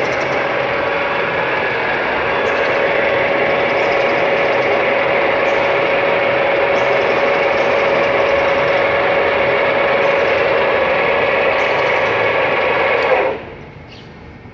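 Metal lathe running steadily with a constant whine, then cutting off abruptly about 13 seconds in.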